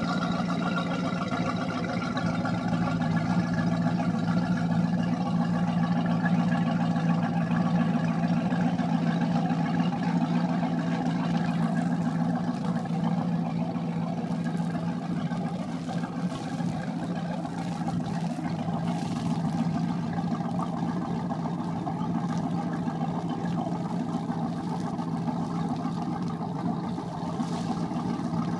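Ford 351 Windsor V8 of a 1986 Correct Craft Ski Nautique running steadily at idle on its trailer, fed cooling water from a garden hose.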